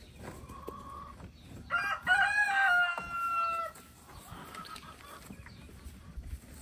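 A rooster crowing once, a single drawn-out call of about two seconds starting about two seconds in, its pitch stepping down toward the end.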